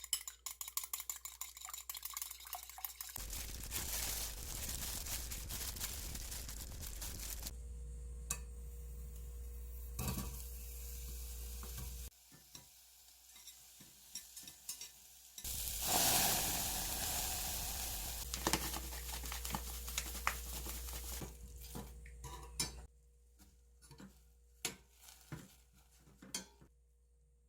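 Kitchen cooking sounds: food sizzling in a pan and being stirred, in several short segments that cut abruptly. Light clicks and taps of utensils come near the end.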